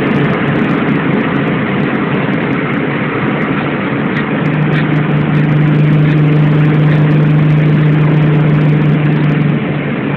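Car engine running at a steady cruising speed with road and wind noise, heard from inside a moving car. A steady low engine hum comes up about four and a half seconds in and fades just before the end.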